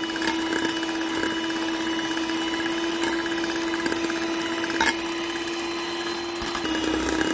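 Handheld electric mixer running at high speed, its twin beaters whipping egg whites and sugar in a bowl: a steady motor whine with one sharp click about five seconds in. The pitch drops slightly near the end.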